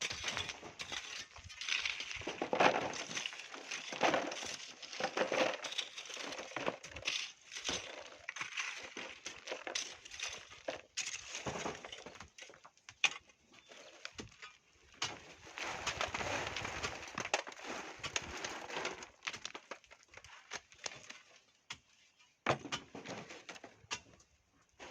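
Hand tools digging and scraping into volcanic sand and gravel, in irregular crunching strokes with stones clicking and clinking.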